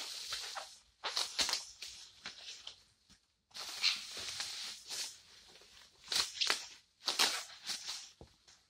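Plastic bubble wrap crinkling and rustling in about five short spells as it is handled and unwound from a packed item.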